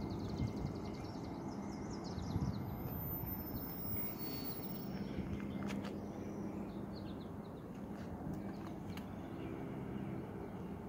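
Small birds chirping in short repeated calls over a steady low outdoor rumble.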